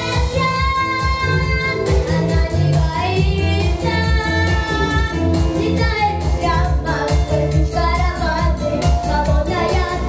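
A young boy singing a pop ballad into a handheld microphone over a recorded backing track with a steady beat.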